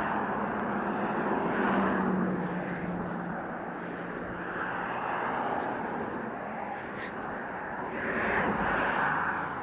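Motor vehicle traffic going by on the road, a steady rushing noise with a low engine drone that swells twice as vehicles pass.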